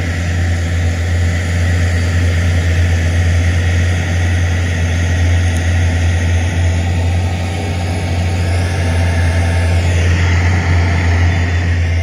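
Crawler bulldozer's diesel engine running with a steady low drone as the machine pushes sand with its blade.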